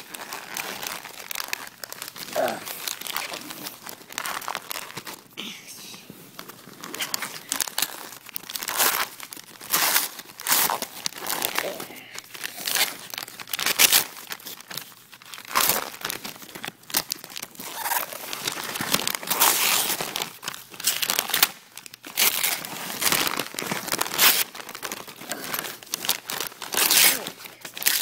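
Gift wrapping paper being crumpled and torn off a present wrapped in many layers, in a quick run of crinkling rustles and rips one after another.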